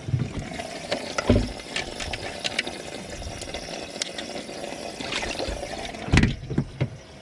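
Water splashing and running with the steady hum of a small pump, which stops about six seconds in; a few knocks and clicks, the loudest about a second in and just after six seconds.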